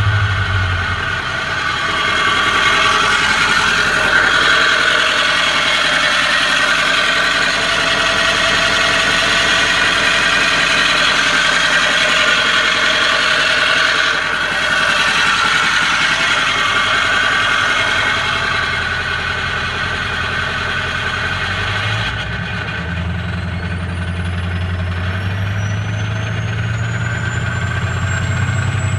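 2004 Ford F-250's 6.0 L Power Stroke V8 diesel running with a strange grinding noise. About two-thirds of the way through, a high whine starts and rises steadily in pitch until the end.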